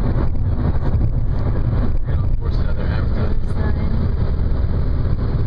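Car driving along a road: a steady low rumble of engine and road noise, with some wind noise.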